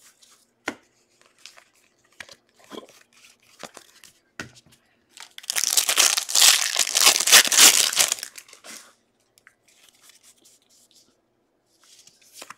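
Foil wrapper of a Bowman baseball card pack being torn open and crinkled, a loud rustle lasting about three seconds in the middle. Before and after it come light scattered clicks of cards being flicked through.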